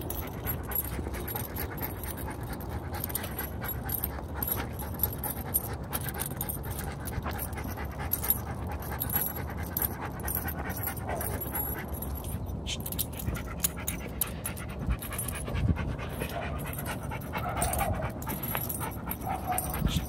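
German Shepherd dog panting steadily with its mouth open.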